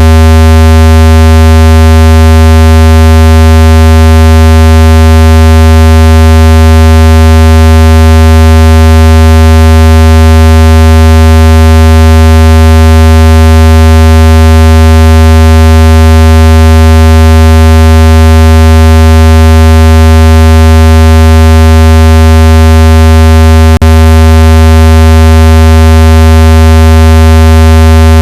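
Speaker-cleaner sound effect: a steady, very loud low buzzing tone with many overtones, played to vibrate a phone speaker and shake water and dust out of it. A single brief click breaks it near the end.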